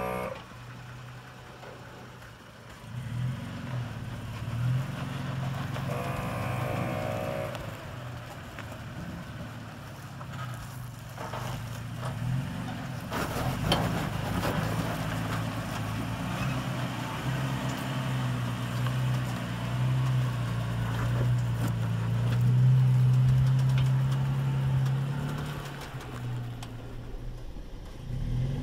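2016 Toyota Tacoma's V6 engine running steadily under load as the truck crawls up a rock ledge, geared 99:1 with the TacoBox in low range. It grows louder about twenty-two seconds in. A brief higher-pitched tone sounds about six seconds in, and a few sharp clicks come around thirteen seconds in.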